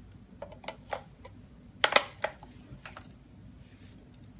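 Clicks of an AA battery being pressed back into the plastic battery holder of an electronic keypad door lock, with a sharp snap about two seconds in as it seats. The lock then gives a few short, faint high beeps as power returns.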